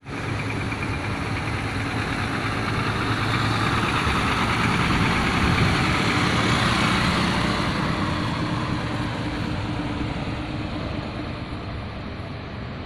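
Heavy vehicle's exhaust running with a deep, snoring rumble, swelling gently in the middle and easing off towards the end.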